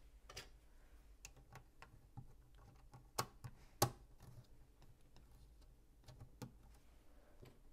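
LEGO pieces clicking and tapping as they are handled and pressed together: scattered short sharp clicks at uneven intervals, the loudest a little before four seconds in.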